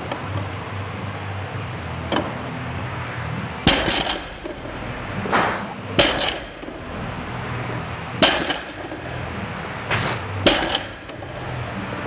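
Barbell loaded with bumper plates set down on the lifting platform after each deadlift rep: a sharp thud with a clang about every two seconds, four times from about four seconds in, with shorter rattles between the reps.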